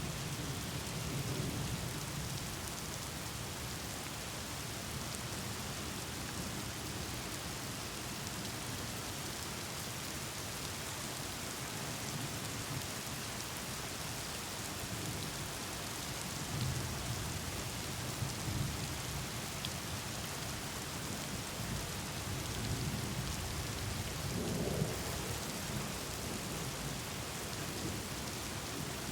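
Thunderstorm: steady rain with low rolls of thunder, rumbling at the start, again from about halfway through, and once more near the end.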